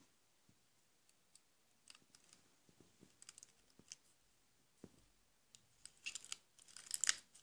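Faint scattered clicks and crackles of holographic slime being poked and pressed in a plastic tub, played back through a screen's speaker, growing thicker near the end.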